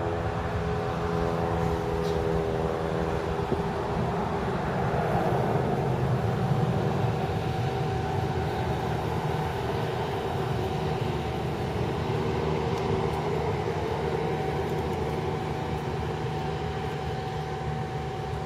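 Boeing 717 jet climbing out at takeoff thrust, its two Rolls-Royce BR715 turbofan engines making a steady rumbling jet noise with a few held whining tones, slowly fading toward the end.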